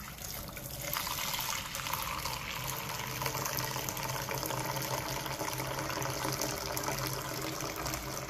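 Warm black sesame soy milk poured from a height in a thin stream into a small rice cooker's inner pot, splashing into the gypsum and cornstarch slurry and foaming as it fills. The pour starts with the window and grows louder about a second in, then runs on steadily. Pouring from high up is what mixes the soy milk with the coagulant for tofu pudding.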